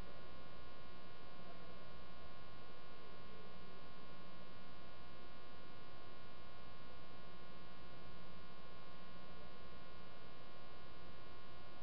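Steady electrical hum with a buzzy edge, unchanging in level: mains hum on the recording.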